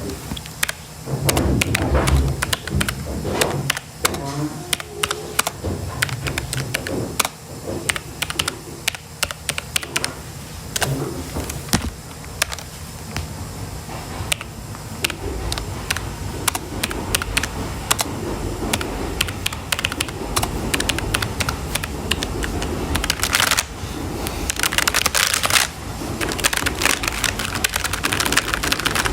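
Typing on a computer keyboard: fast, irregular key clicks, with two short, denser bursts of clatter about three-quarters of the way through.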